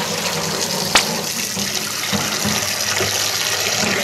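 Tap water running steadily into a stainless steel pot in a stainless sink as rice is rinsed, with one sharp knock about a second in.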